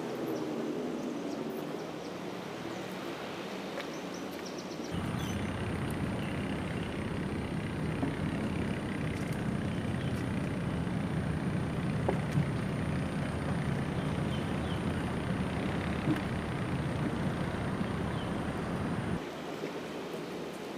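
Rumble of road traffic crossing a large road bridge, heard from underneath it: a dull, steady rumble that sets in suddenly about five seconds in and cuts off a couple of seconds before the end.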